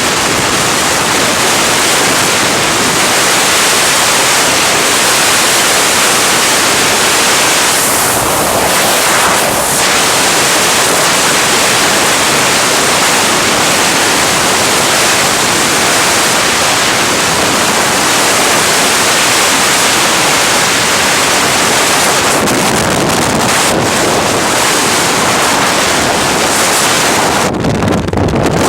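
Storm-force wind blowing hard across the microphone, a loud, steady rush of noise with a brief lull near the end.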